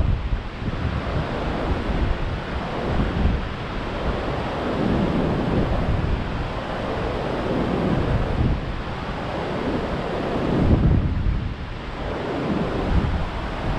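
Rough surf raised by a tropical storm, waves breaking and washing up a sandy beach in a continuous roar that swells and eases, loudest about eleven seconds in. Gusty wind buffets the microphone throughout.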